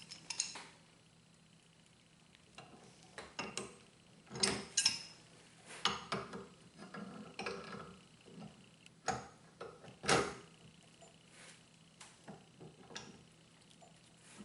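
Pipe wrench clinking and knocking against a threaded metal pipe fitting as the joint is tightened down. The strokes are scattered, with the loudest about four and a half and ten seconds in.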